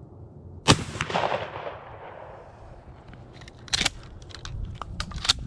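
A single shotgun shot about a second in, its report rolling away for a second or so. Several clicks and a sharper knock follow a few seconds later as the gun is handled and leaned against the tree.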